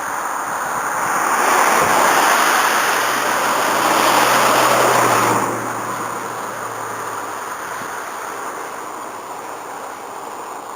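A rushing noise builds about a second in, stays loud for about four seconds with a faint low hum beneath it, then drops away suddenly.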